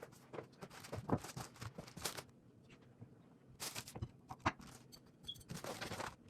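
Handling noise: scattered light knocks, clicks and short rustling scrapes as things are moved about, in a hunt for a dropped screw.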